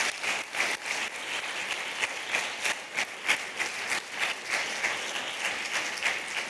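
Audience applauding, a steady dense patter of many hands clapping at the close of a stage performance.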